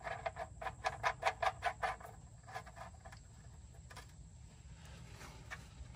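Oil drain bolt being threaded by hand into a pickup's oil pan: light, quick clicks, about six a second, for the first two seconds, then a few scattered clicks.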